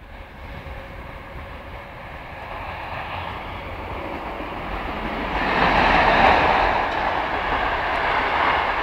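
Passing passenger train's running noise, wheels rolling on the rails, growing steadily louder and rising sharply about five seconds in as it draws level.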